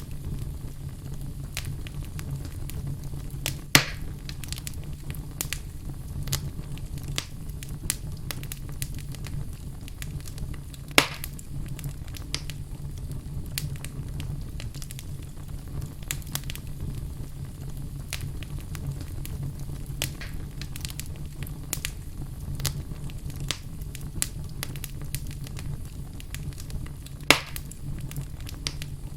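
Wood fire crackling in a fireplace: a steady low rumble with frequent small crackles, and three much louder pops from the burning logs spread across the stretch.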